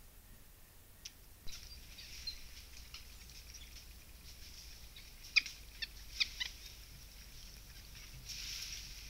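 Forest ambience picked up by a camera trap: a faint high hiss that starts about a second and a half in, with a few short, sharp high chirps or clicks, most of them bunched around the middle.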